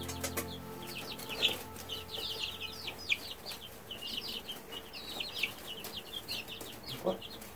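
A flock of three-week-old Rhode Island Red chicks peeping constantly: many rapid, high, downward-sliding peeps overlapping one another, with a few light clicks near the start.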